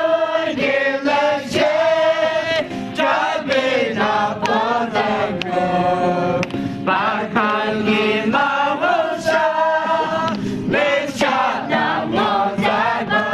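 A group of voices singing together in chorus, with sharp hits marking a steady beat about twice a second.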